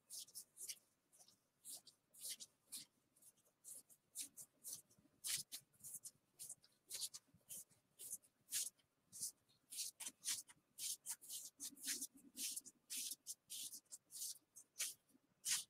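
Baseball trading cards being flicked one by one through a hand-held stack, each card's edge sliding off the next with a short, crisp swish, about two or three a second.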